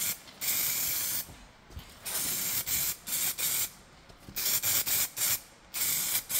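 Würth aerosol spray can spraying paint in a series of short hissing bursts, with brief pauses between passes.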